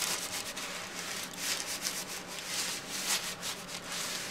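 A gravity-feed steam iron's soleplate sliding back and forth over fabric under a press sheet, a rubbing swish with each stroke, repeated every half second or so. The pieces are being pressed so the heat sets the Steam-A-Seam fusible tape.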